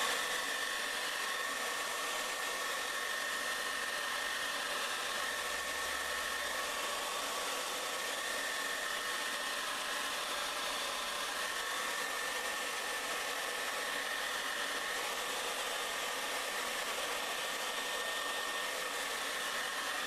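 Domestic hair dryer running on high, blowing through a funnel taped on as a nozzle: a steady rush of air with a thin high whine.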